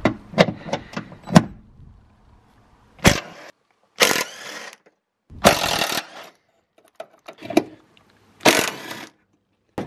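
Impact gun undoing rusty 12 mm radiator-bracket bolts in four short bursts, each under a second long. It follows a few sharp metallic clinks in the first second and a half.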